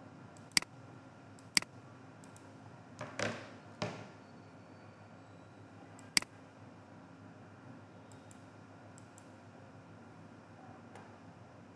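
Computer mouse clicks, single and spaced a second or more apart, with a short rustle about three seconds in.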